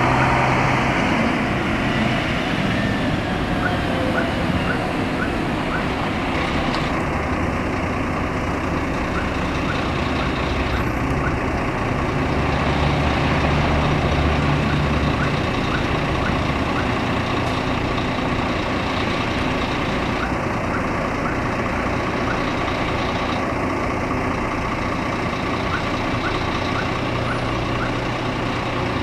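Scania K400 coach's six-cylinder diesel engine running slowly and idling, a steady low drone that swells briefly about halfway through. A falling whine in the first few seconds, and faint regular ticks throughout.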